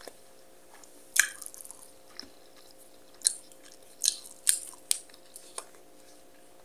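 Close-miked chewing: a person eating a mouthful of rice and chicken, with a series of short sharp wet mouth clicks and smacks scattered through.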